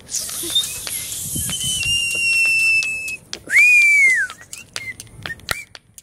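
Whistling as part of an improvised rhythm jam: a held note for about a second and a half, then a louder whistle that rises and falls, over scattered sharp tapping clicks.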